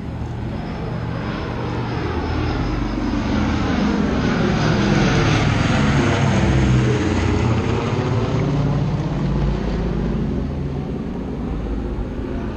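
Four-engine WWII bomber with radial piston engines flying over, its propeller drone growing louder to a peak about six seconds in, then fading as it passes.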